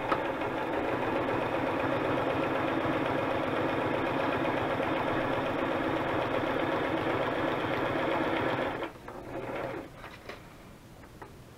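Sewing machine running steadily as it stitches through paper, then stopping abruptly about nine seconds in; a few faint clicks follow.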